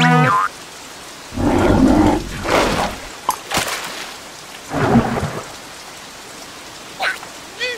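Steady rain with heavy low rumbles of thunder, one about a second in and another about five seconds in. A short, wobbling cartoon-voice squeal cuts off at the start, and brief squeaky vocal sounds come near the end.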